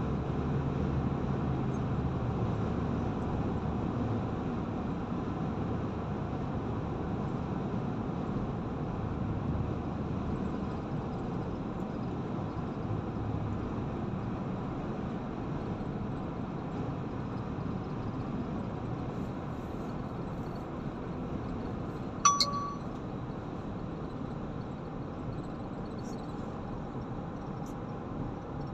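Steady road and engine noise inside a moving car's cabin at highway speed. One short, sharp ding sounds about three-quarters of the way through.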